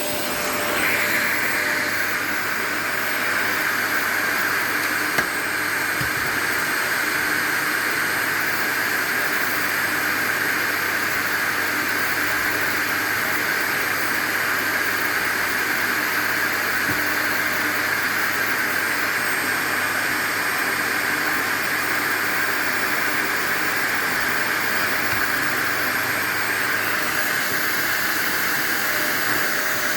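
Vacuum cleaner running steadily, its motor and suction making a continuous whooshing hiss with a steady whine; the pitch of the air noise rises a little about a second in.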